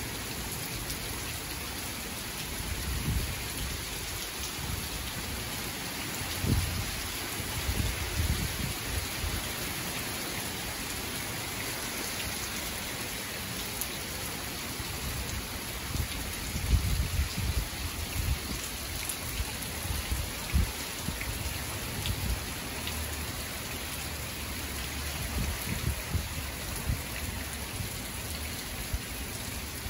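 Steady heavy rain from a tropical storm, a constant hiss. Short low rumbles swell up now and then, strongest about seventeen and twenty seconds in.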